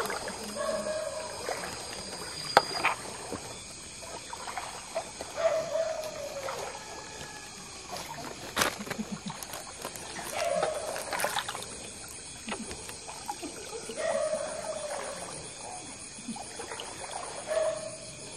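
Water splashing and trickling as river prawns are caught and handled by hand, with a few sharp knocks. A short animal call repeats every few seconds over steady high-pitched tones.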